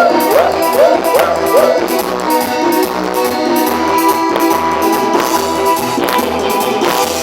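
Music: an instrumental passage with guitar over a steady bass beat, opening with a run of short sliding notes.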